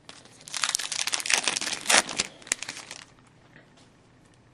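Foil wrapper of a hockey card pack crinkling, a dense run of crackles for about three seconds that stops suddenly.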